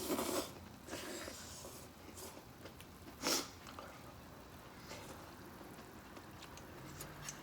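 Short breathy puffs and slurps of someone blowing on and sipping hot kimchi hotpot broth, the loudest about three seconds in, with a few faint clicks later.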